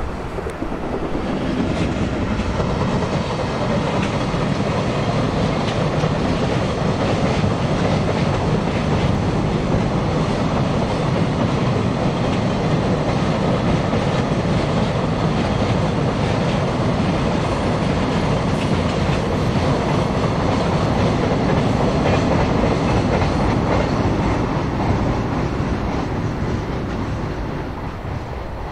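Long freight train of container wagons running across a steel-decked through-truss railway bridge: a steady, loud noise of wheels on rails and the steel deck. It builds in the first second or two and fades over the last few seconds as the train clears the bridge.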